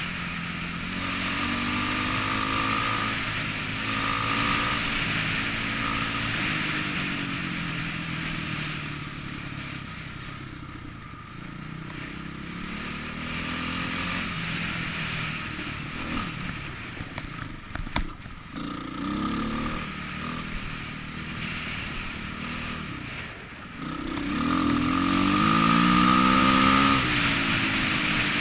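Dirt bike engine revving up and down while riding a dirt trail, easing off for a few seconds in the middle and rising hard again near the end. A single sharp knock comes about 18 seconds in.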